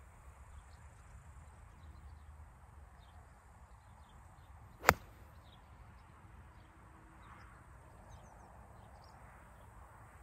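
A golf 8-iron striking the ball on a tee shot: one sharp, loud click about five seconds in. The player himself calls it a poorly struck shot.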